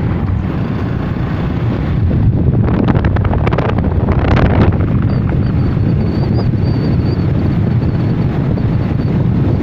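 Wind rushing over the microphone on top of a moving vehicle's steady low rumble; the buffeting grows louder and rougher about two seconds in and eases about five seconds in, after which a faint high whine is heard.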